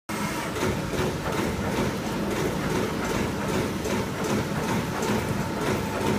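ACL TPH3.1250 hydraulic CNC turret punch press punching sheet steel, a rapid regular series of sharp punch strokes at about three a second over the machine's running noise.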